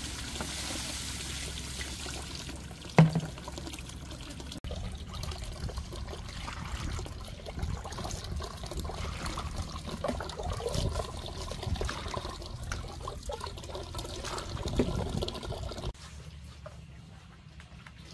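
Water trickling and pouring, with splashing as water is scooped from a large clay jar and poured into a plastic basin. One sharp knock about three seconds in is the loudest sound.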